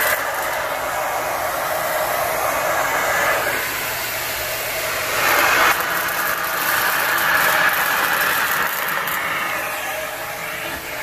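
ProTeam Super Coach backpack HEPA vacuum running steadily with a rushing suction sound, its tone shifting a couple of times as the floor brush is moved, picking up loose synthetic stuffing and beans.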